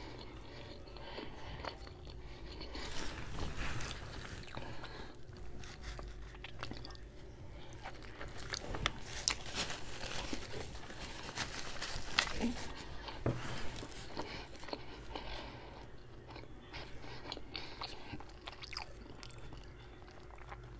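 Close-up eating sounds from biting into and chewing a deli hero sandwich: many small clicks and crackles from the mouth, busier in a couple of stretches.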